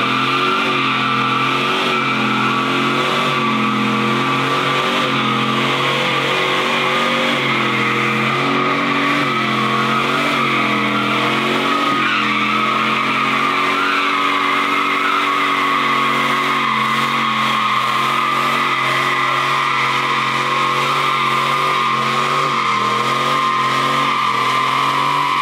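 A car doing a burnout with its tyres squealing continuously while the engine runs at high revs, its pitch shifting up and down with the throttle.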